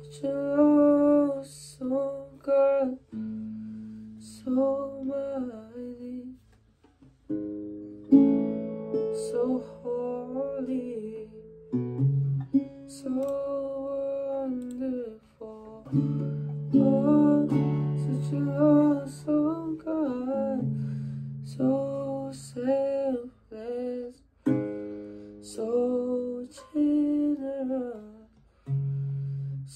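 A young man singing a slow worship song with guitar accompaniment, in short sung phrases separated by brief pauses over held chords.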